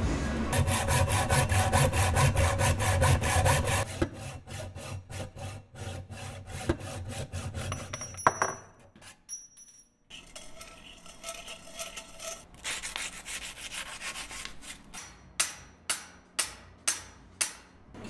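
Rhythmic back-and-forth strokes of a hacksaw cutting a bicycle fork's steerer tube clamped in a vise and saw guide. The strokes are fast and dense at first, stop for a moment around the middle, and end with a few sharper strokes about half a second apart.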